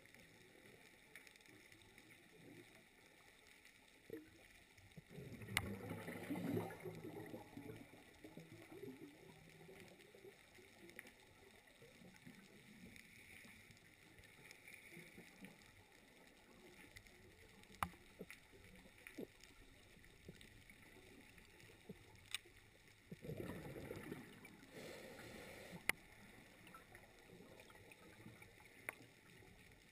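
Faint underwater ambience: a low steady hiss with a few scattered sharp clicks, and two short muffled rushes of water, about five seconds in and again about twenty-three seconds in.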